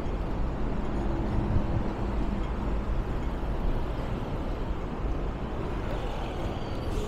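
Steady low rumble of motor traffic, with a faint engine hum.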